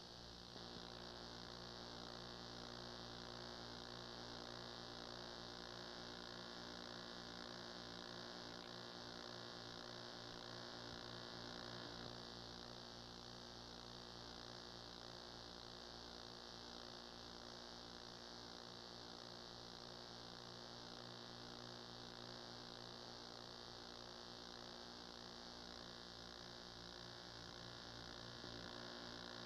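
Faint, steady electrical mains hum with hiss, unchanging throughout; no sound from the game itself is heard.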